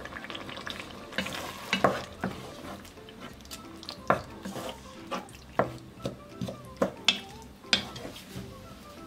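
Wooden spoon stirring chopped onion, celery, green pepper and tomatoes in a nonstick pot, knocking and scraping against the pot about twice a second at uneven intervals, over a steady sizzle of the vegetables cooking.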